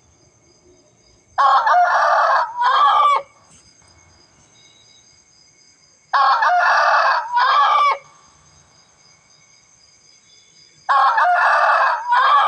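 Rooster crowing three times at even intervals, each crow about two seconds long.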